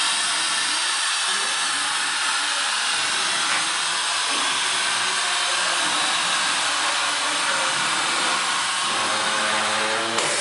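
GMC Tu-Way Cuber running, a pneumatic wire-harp cutting machine, with a steady hiss of compressed air as its cylinders push the block through the wires. A faint tone joins the hiss near the end.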